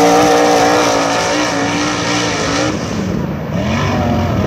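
A USAC non-wing sprint car's 410 cubic-inch V8 runs at speed around a dirt oval, its engine note wavering in pitch. About three seconds in, the sound thins and fades as the car pulls away.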